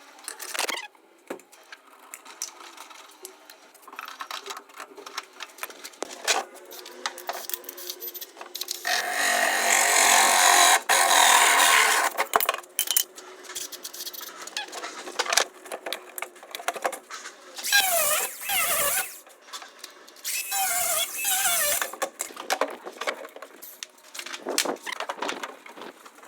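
Tool work on a boiler and gas-pipe installation: scattered clicks and clatter, a power tool such as a drill running for about three seconds near the middle, and two short wavering squeals later on.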